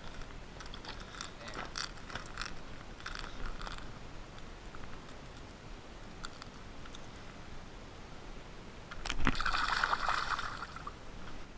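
Shallow water sloshing and splashing, with light ticks in the first few seconds, then a sharp knock about nine seconds in followed by a louder rush of splashing lasting about two seconds.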